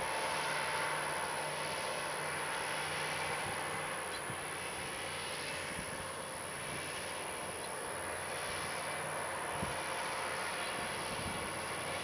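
John Deere 8345R tractor's diesel engine running steadily under load while pulling an S-tine field cultivator through the soil: an even drone with a low, constant hum.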